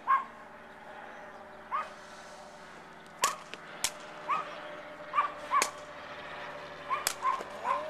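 A dog barking repeatedly in short single barks. Over the barking come a few sharp smacks of a takraw ball being kicked.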